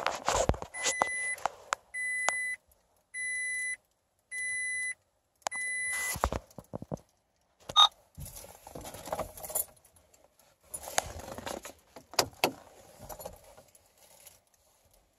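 Keys jangling and rattling at the ignition of a 2007 Toyota Tacoma, with the cab's warning chime beeping five times, each beep about half a second long, in the first six seconds; more jangling and clatter follow.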